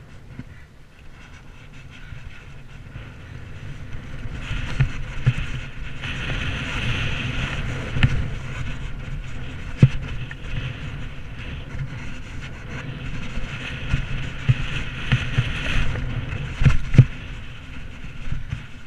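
Mountain bike ridden fast over a bumpy, muddy dirt track: wind rushing over the camera's microphone, with tyres rumbling and the bike rattling. The rush grows louder a few seconds in, and several sharp knocks come as it hits bumps.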